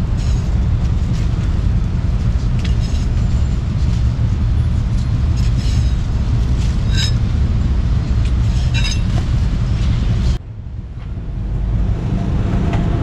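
Heavy steady rumble of street traffic and motorbikes, with a few sharp knocks of a steel cleaver chopping on a wooden block. The level drops suddenly about ten seconds in, then builds back up.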